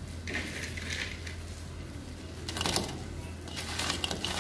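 Crisp deep-fried potato strips dropped into a ceramic bowl and handled: scattered light clicks and rustles over a low steady hum.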